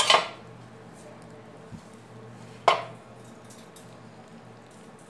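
Two sharp metallic clanks about two and a half seconds apart, each ringing briefly: the bars of a metal wire dog crate knocked as roti is fed through them to the puppies crowding inside. A faint steady hum lies underneath.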